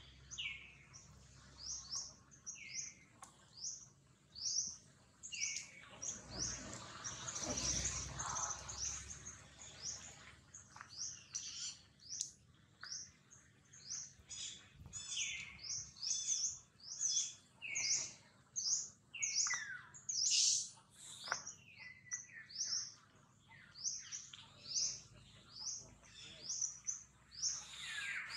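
Small birds chirping rapidly and over and over, many short falling chirps, with a brief rush of noise about six to eight seconds in.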